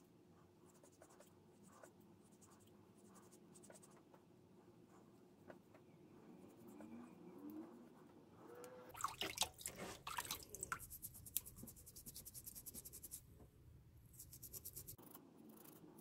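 Green abrasive scouring pad scrubbing a wet silver pencil barrel: faint scratchy rubbing that turns into louder rasping strokes a little past halfway, fast and even at about five or six strokes a second, then quietens again.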